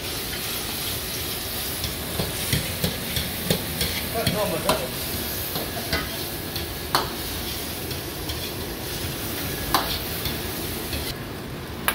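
Meat and vegetables sizzling in oil in a wok while a metal ladle stirs and scrapes them, knocking against the wok every second or two over a steady frying hiss.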